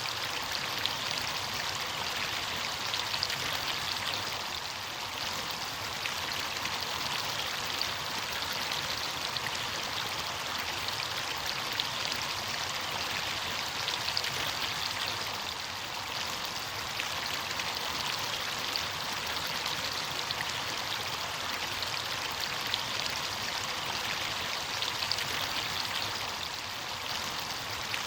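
Steady rush of running water from a stream or cascade, a dense hiss with fine splashing flecks throughout.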